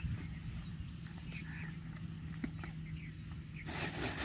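Thin plastic carrier bag crinkling as it is handled, starting near the end. Before it, a low steady hum with a few faint chirps and small clicks.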